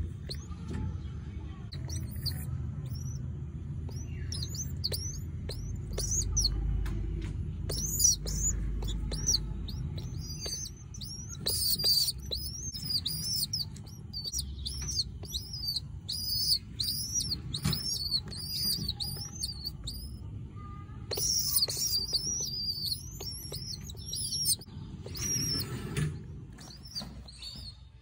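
Pigeon squabs peeping, a run of short high squeaky calls repeated a few times a second with a couple of brief pauses, over low rumbling and small clicks from the nest being handled.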